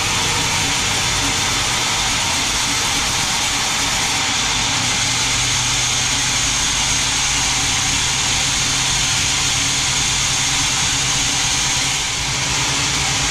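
Large band sawmill running steadily: a low machine hum under a continuous high hiss.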